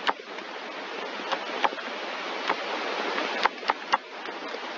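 Steady microphone hiss that slowly grows louder, broken by about six short, sharp clicks, the loudest right at the start, as lines and labels are drawn on the computer.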